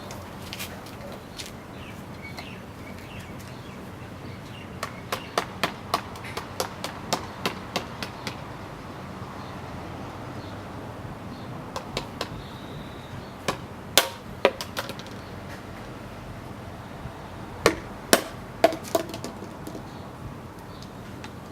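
A series of sharp knocks: a quick run of about ten, roughly three a second, starting about five seconds in, then scattered pairs and small clusters later on, over a steady background hiss.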